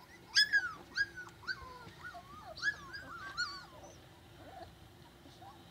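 Bully dog puppy whimpering: a quick series of short, high-pitched whines that rise and fall. They are loudest at the start and thin out after about three and a half seconds.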